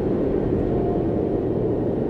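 Steady low rumbling drone of an ambient soundscape, with a few faint held tones above it.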